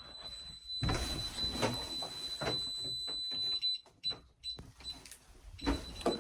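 Home security alarm panel sounding a steady high beep tone, which breaks into short separate beeps near the end, over rustling and door-handling noises.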